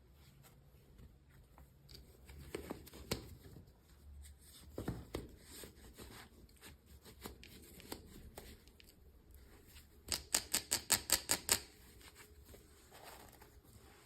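Toy packaging being handled and opened: scattered plastic and cardboard clicks and rustles, then a quick run of about nine sharp clicks, roughly six a second, about ten seconds in.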